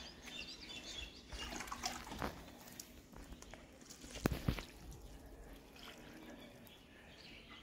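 Water poured from a small plastic mug, trickling and splashing faintly onto dry soil, with two light knocks a little past four seconds in.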